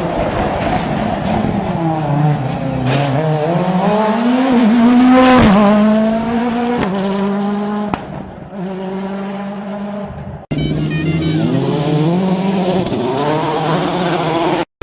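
Rally car engines running hard at high revs, the pitch climbing and then falling as a car passes, with gear changes; a sudden cut about ten seconds in switches to another car revving up.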